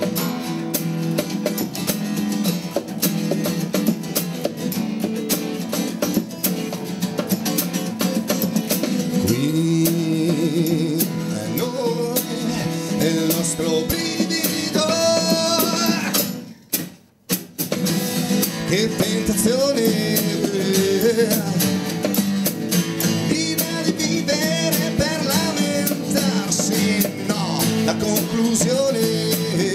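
A live acoustic band playing an instrumental passage: two steel-string acoustic guitars strumming and picking over an acoustic bass guitar and a drum kit. About halfway through, the sound drops out to near silence for about a second, then the music carries on.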